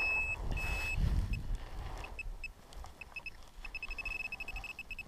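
Handheld metal-detecting pinpointer probing a dig hole: a high electronic tone held twice briefly, then scattered short beeps that quicken into a rapid run from about halfway, the signal growing as the probe closes on buried metal. Dull thuds of soil and handling near the start.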